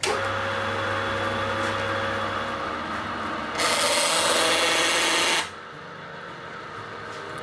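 Electric heel-edge finishing machine running with a steady hum, and its heated knurled wheel rubbing around a leather heel edge in a loud hiss of about two seconds that stops suddenly as the heel is lifted away. The wheel is pressing a notched decorative pattern into the heel.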